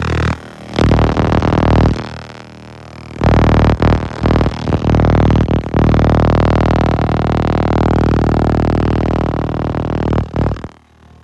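Background electronic music with sustained synthesizer tones, changing in sections and dropping away briefly near the end.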